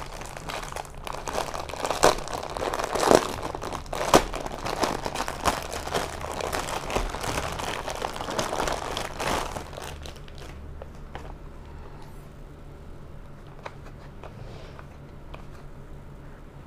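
Thin clear plastic bag crinkling and crackling as it is handled and pulled off a boxed bicycle light set. The crinkling stops about ten seconds in, leaving a low steady hum and a few faint clicks.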